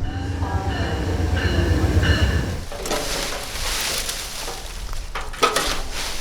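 A large vehicle rumbling, with a few steady high-pitched tones over the rumble for the first couple of seconds. This gives way to a hissing noise, and there is a sharp clatter near the end.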